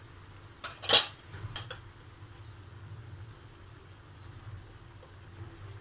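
Kitchen clatter: a sharp knock about a second in and a lighter one just after, over a low steady hum.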